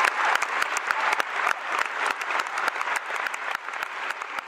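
Theatre audience applauding after a song, many hands clapping at once, the applause gradually dying away.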